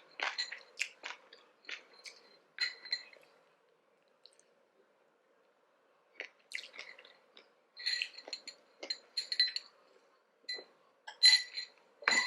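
Close-up eating sounds: chewing and crunching of food with sharp clicks and clinks of a fork on its container. There is a brief quiet pause of about two seconds in the middle.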